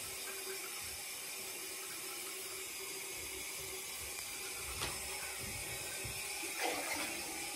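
Steady hiss with a faint, even hum underneath, and a light click about five seconds in.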